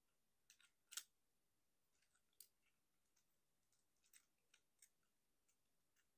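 Plastic joints and parts of a Transformers Masterpiece MPM-11D Ratchet action figure clicking as they are turned and folded by hand during transformation: faint, scattered clicks, the loudest about a second in.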